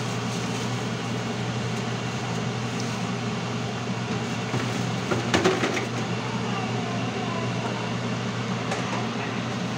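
A steady mechanical hum with a low, even drone under a constant hiss. Around five seconds in there is a brief cluster of clicks and knocks.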